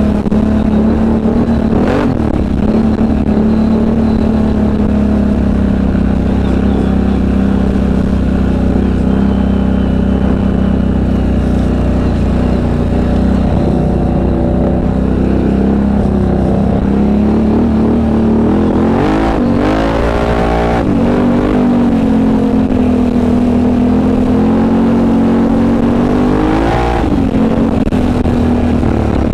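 ATV engine running steadily under way. The revs swing up and back down about two-thirds of the way through, and rise again near the end.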